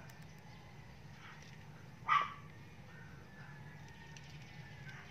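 A Shih Tzu gives a single short, high cry about two seconds in, over a steady low background hum.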